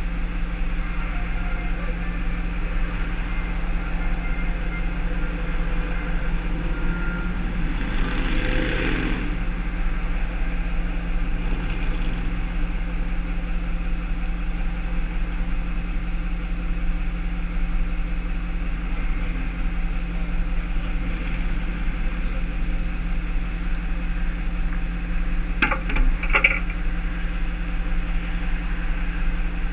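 Tow truck engine idling steadily, with a brief rushing sound about eight seconds in and a few sharp knocks near the end.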